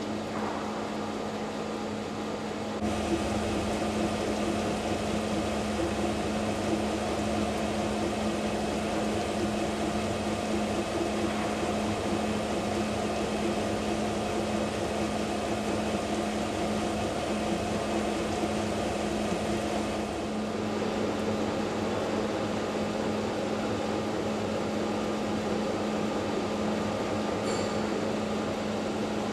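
Weingaertner rotor lathe running steadily while machining a progressive cavity pump rotor: a continuous mechanical hum with a constant tone, growing louder about three seconds in and easing slightly about twenty seconds in.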